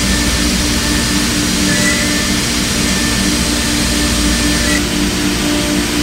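Thermwood CNC router spindle running as its bit carves a wooden leg turned on the rotary axis: steady machine noise with a pulsing low hum, the high part of the sound changing about five seconds in.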